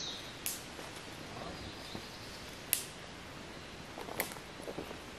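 Hammock suspension gear being handled at a tree: a few sharp, light clicks and soft rustles over quiet woodland ambience. The sharpest click comes just under three seconds in.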